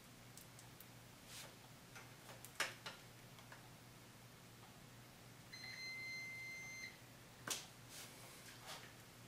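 A few sharp clicks and light taps of wire connectors and clips being handled at a car battery, over a faint steady hum. About midway comes a single steady high electronic beep lasting about a second and a half.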